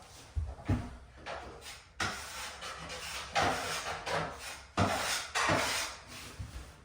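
Wood scraping and rubbing in irregular strokes, with a few sharp knocks: skirting board being worked by hand.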